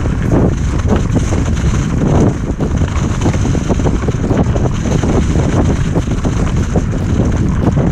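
Loud, steady wind buffeting on the microphone of a camera carried on a moving mountain bike, a dense low rumble with constant irregular crackle.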